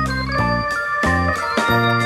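Background music: a keyboard tune of held notes over a bass line that changes about every half second.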